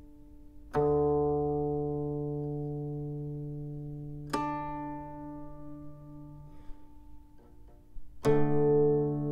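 Slow, calm background music: three plucked-string chords, each struck and left to ring for several seconds, over a low sustained tone.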